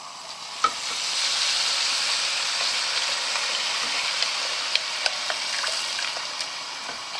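Vegetable stock poured from a glass jug into a hot pot of frying rice and vegetables, setting off a steady hissing sizzle as the liquid hits the pan; it builds about a second in and eases near the end. A few small clicks sound over it.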